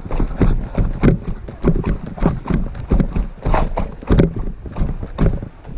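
Footsteps on loose rock and dirt, an uneven walking beat of about two steps a second.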